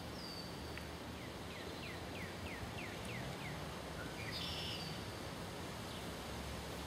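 Steady outdoor background noise with bird calls over it: a high whistled note at the start, then a run of about seven short downslurred notes over about two seconds, and a brighter call a little past the middle.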